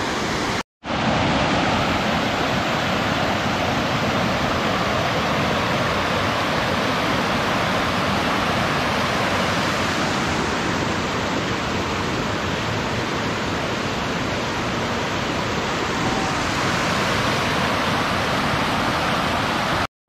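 Shallow river cascade rushing steadily over broad rock slabs. The sound cuts out for a moment less than a second in.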